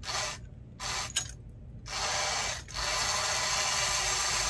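Battery-powered Alps tin toy crane's small electric motor and gear train whirring as the cable winch works the magnet lifting the bucket. It starts and stops a few times, then runs steadily for the last couple of seconds.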